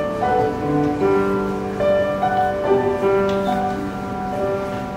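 Middle school choir singing with piano accompaniment, a slow passage of long held notes that change every second or so.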